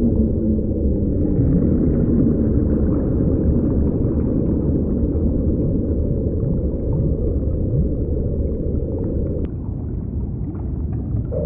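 Deep underwater ocean rumble, heavily muffled, with faint low moaning tones that glide up and down like whale calls. Near the end the texture thins and a steady, higher hum comes in.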